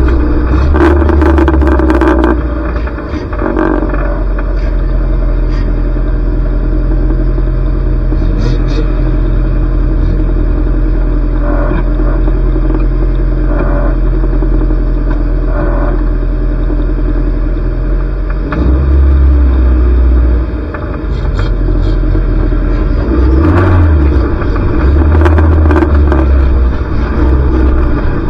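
Junior banger race car engine running hard under load, a continuous low drone. Sharp knocks and clatters of car-to-car contact cut through it, several in the first couple of seconds and a cluster in the last few seconds.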